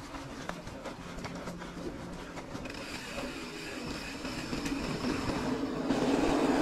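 Mountain bike rolling along a paved trail: tyre rumble and rattle with scattered clicks. A steady high tone joins about halfway through, and the rolling noise grows louder toward the end.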